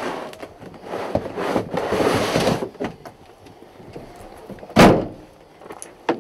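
A heavy plastic tub scraped and slid into a pickup truck's load bed, then one loud bang as the tailgate is slammed shut late on.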